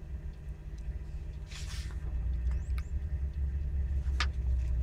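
Truck engine idling, a steady low rumble heard inside the cab. Paper rustles as a sheet is handled about a second and a half in, with a short sharp paper snap near the end.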